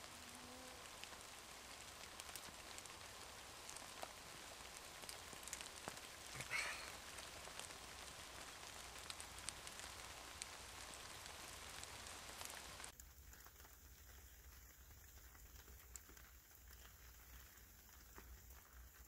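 Faint light rain pattering, with soft scattered drops ticking. The background drops to a quieter level about thirteen seconds in.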